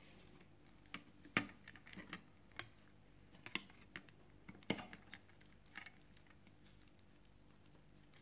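Faint scattered clicks and taps of small plastic and metal phone parts being handled and fitted by fingers, as a smartphone's fingerprint sensor is put back in place. About a dozen irregular clicks over the first six seconds, then they stop.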